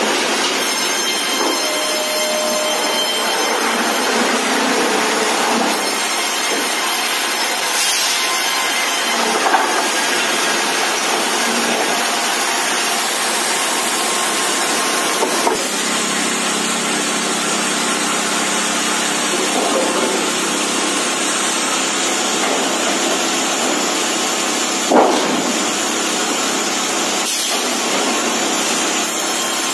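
Sawmill line running: a steady loud noise of saws and roller conveyors as planks are fed through, with a few sharp knocks, the loudest about 25 seconds in.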